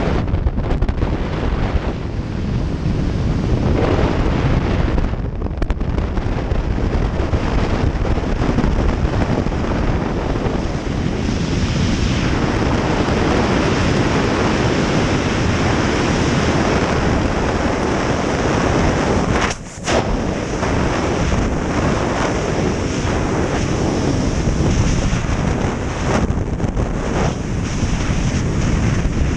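Freefall wind rushing over a body-mounted camera's microphone: a loud, steady buffeting roar of air, dipping sharply for a moment about two-thirds through.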